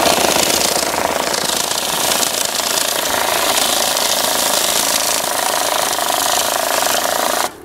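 Electric banknote counting machine running, feeding a stack of bills through at high speed with a fast, even rattle that stops abruptly near the end.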